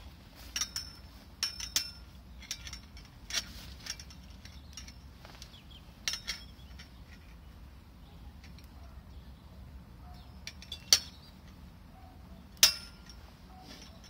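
Metal bird-feeding-station hook arms clinking and knocking against the steel pole as they are fitted on, in scattered light clicks, with two sharper knocks in the last few seconds.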